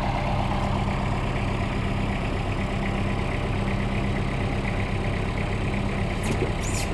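Kubota compact tractor's diesel engine running steadily at a constant speed while working its front loader, with a few brief high-pitched squeaks near the end.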